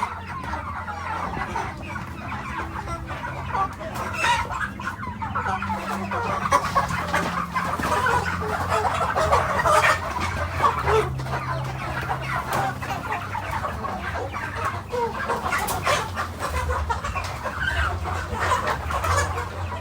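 A flock of chickens clucking continuously, with a steady low hum underneath.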